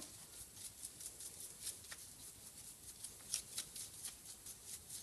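Faint, scratchy strokes of a soft brush sweeping loose debris off the steel cutting-head arms of a brake lathe, a quick irregular run of short brushing sounds.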